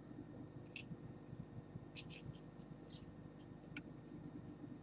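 Faint, scattered clicks and crinkles of fingers picking and prying at a small container sealed all round with tape, over a low steady hum.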